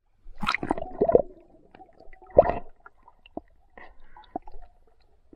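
Water gurgling and sloshing in irregular bursts around a camera held at or under the water surface, with the loudest gurgle about two and a half seconds in.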